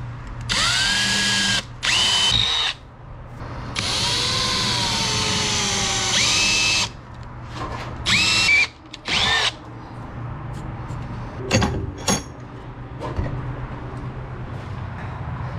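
Power drill running in about five bursts, its motor whining as it spins up and winds down, the longest about three seconds. A few sharp knocks follow in the second half.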